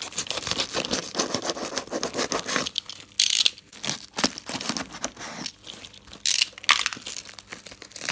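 Snap-off utility knife blade slitting and tearing through a plastic courier mailer, with the plastic crinkling as it is held and pulled open. There are two louder rips, about three seconds in and just after six seconds.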